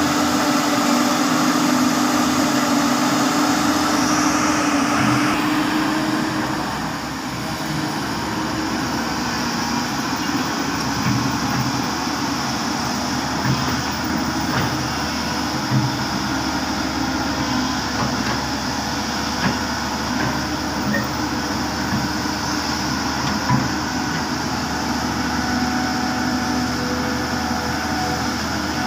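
Diesel engine of heavy earthmoving equipment running steadily. Its note drops and eases about six seconds in, and a few short knocks come later on.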